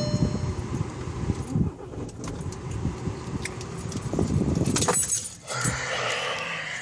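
Mk6 Volkswagen TDI diesel being started: the engine is turned over on the starter with an irregular low pulsing, a short chime sounds at the start, and sharp clicks come about five seconds in.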